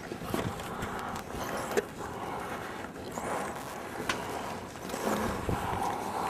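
Steady wind rushing over a worn camera's microphone while the camera moves, broken by a few sharp clicks.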